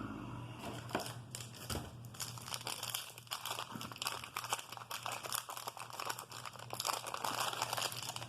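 Wax-paper wrapper of a 1988 Topps baseball card pack crinkling and tearing as it is opened, with a dense run of irregular crackles.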